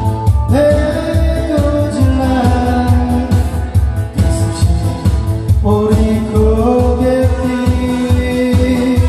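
A song with a singing voice holding long notes over a steady beat and band backing.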